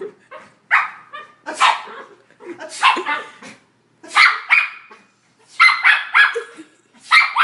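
A pet dog barking in a string of short barks, some in quick pairs and triples, at a person's sneezing.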